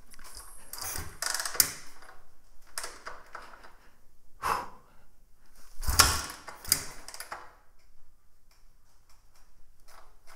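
A string of irregular clunks and rustles from handling the 1997 Suzuki DR350 dirt bike while getting ready to start it, the strongest about halfway through with a deeper thump; the engine is not running.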